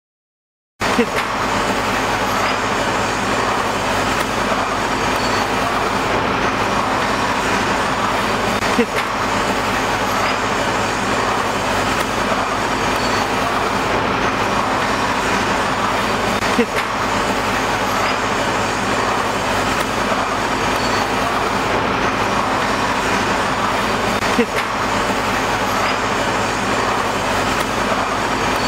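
HX 210A pneumatic paper drilling machine running with a steady mechanical whir that starts abruptly about a second in, broken by a sharp knock roughly every eight seconds, four times in all.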